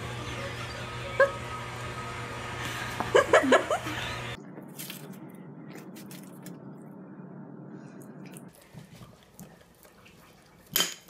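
A dog whines in a few short, bending cries over a steady low hum. After that come faint scattered clicks and one sharp knock near the end.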